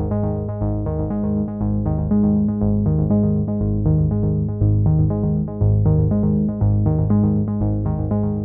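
Background music: a soft synthesizer and keyboard piece playing evenly paced notes with a steady pulse.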